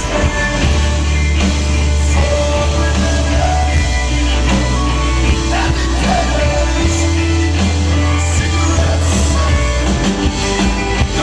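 A live rock band playing a song: electric guitar and bass guitar under a sung lead vocal, with long held low bass notes, recorded from the audience.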